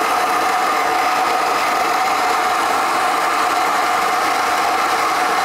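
Macap M42D espresso grinder running steadily, its flat burrs grinding coffee beans into a portafilter, an even motor-and-burr whir with no break.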